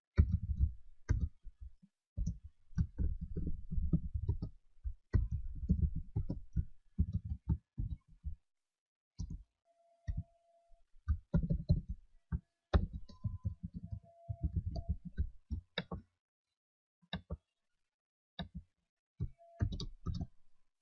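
Computer keyboard typing: runs of quick keystrokes with short pauses between them.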